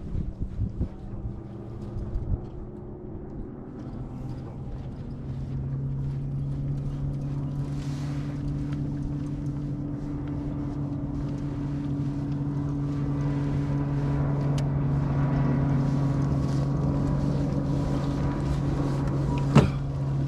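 A boat's motor running steadily. It comes in about five seconds in and slowly grows louder, with wind on the microphone and a single sharp knock near the end.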